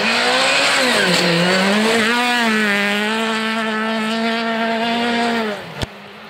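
Rally car engine running hard at high revs. Its pitch dips and comes back up in the first couple of seconds, then holds steady, and it cuts off abruptly near the end with a short click.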